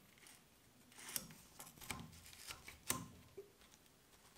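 Small metal clicks and short scrapes of a Kar98k bolt being worked by hand in the receiver as the safety is set for taking the bolt out: a handful of faint clicks, the sharpest about three seconds in.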